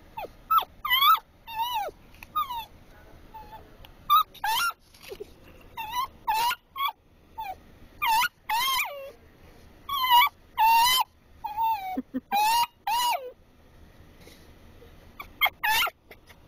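Dachshund whining and yipping over and over in short high-pitched bursts, the pitch sliding up and down, with a few brief lulls. Excited whining in anticipation of a treat.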